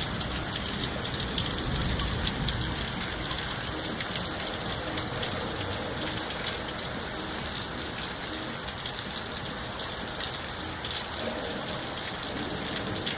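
Steady rain falling, a dense even hiss with sharp ticks of single drops hitting a surface scattered through it.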